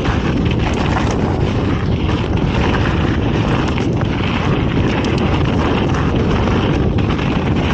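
Wind rushing over the camera microphone and knobby tyres rolling on dirt as a mountain bike is ridden fast down singletrack. Scattered small clicks and rattles come from the bike.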